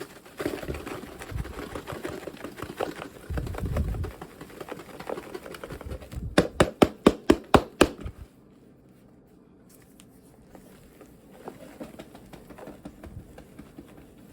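Clumped borax powder being scraped and broken up while it is measured into a cup, with crunching and scraping, then a quick run of about nine sharp taps six seconds in as the clumps are knocked loose, followed by faint rustling.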